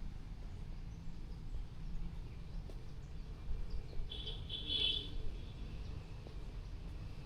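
A bird calls with a short burst of high chirps about four seconds in, over a steady low rumble of background noise.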